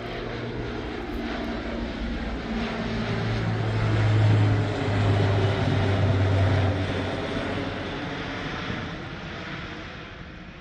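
A fixed-wing aircraft's engines passing, with a low steady hum over a broad rushing noise; it grows louder to a peak about halfway through, then fades away.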